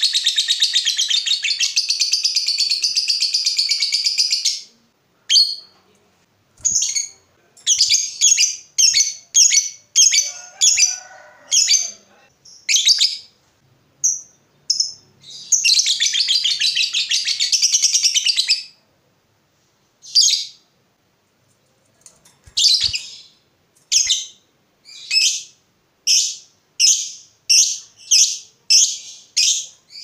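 Lovebird singing. A long, rapid chattering trill (the 'ngekek' that keepers prize) runs for about four and a half seconds, then a string of separate sharp chirps follows. A second trill of about three seconds comes midway, and quickening chirps build near the end.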